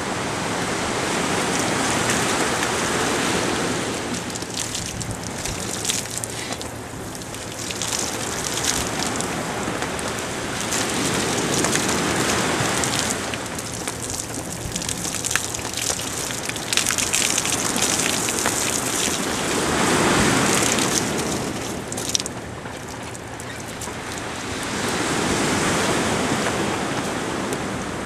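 Strong wind buffeting the microphone over the rush of a choppy, whitecapped sea: a crackling rushing noise that swells and fades every few seconds.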